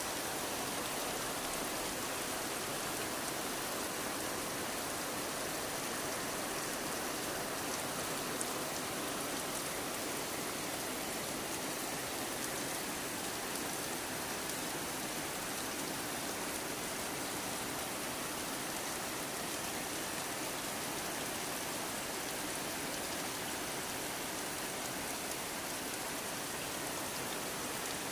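Steady rain falling, an even hiss of many drops on surfaces with no let-up.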